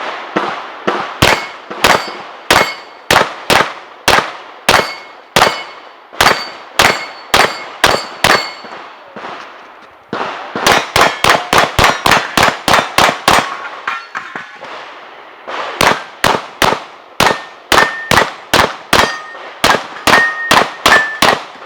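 Rapid strings of 9mm pistol shots from a Glock 34, fired in three fast runs with short pauses between, many hits followed by the ring of steel targets.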